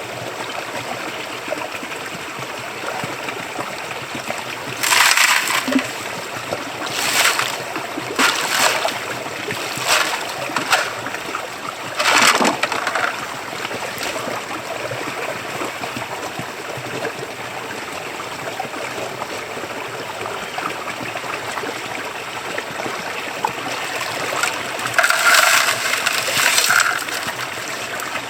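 Flowing creek water running steadily, broken by about half a dozen short bursts of splashing and gravel scraping in the first half and a longer one near the end as creek gravel is dug and shovelled into a bucket.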